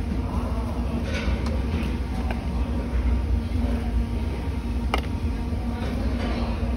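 Steady low rumble and hum of restaurant background noise, with faint chatter and a single sharp click about five seconds in.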